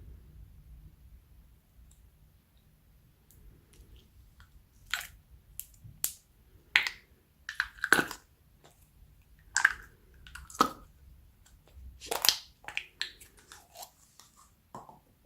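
Slime being mixed and squeezed by hand, giving an irregular run of sharp wet pops and squelching clicks that starts about three seconds in.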